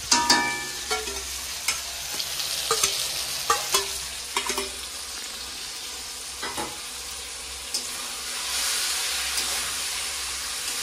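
Metal spatula scraping and clinking against a metal kadai as banana flower fries in coconut cream, over a steady sizzle. A ringing metal clink comes right at the start, and the sizzle grows louder near the end.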